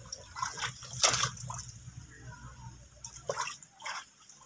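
A monkey splashing and sloshing in a tub of water, in irregular splashes with the loudest about a second in, and water dripping and sloshing as it climbs out over the rim near the end.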